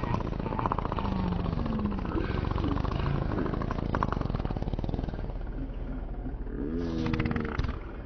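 Cartoon pig fart sound effect, slowed down and drawn out into a long, low, buzzing rasp.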